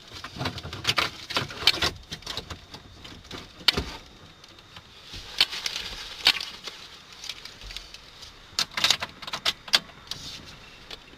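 Irregular crackling and popping from the car's audio speakers with the radio switched off, an electrical fault noise caused by the Lockpick interface added to the MyGig RB2 head unit.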